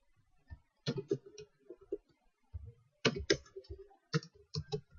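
Computer keys being typed: short clusters of sharp clicks, about a second in, around three seconds in and again near the end, with quiet pauses between.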